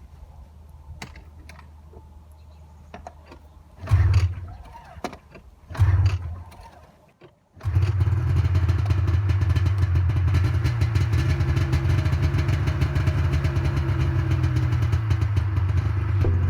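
1998 Ski-Doo MX Z 440 fan-cooled two-stroke snowmobile engine being pull-started. Two pulls, about four and six seconds in, each fire it only briefly; from about halfway it catches and runs steadily.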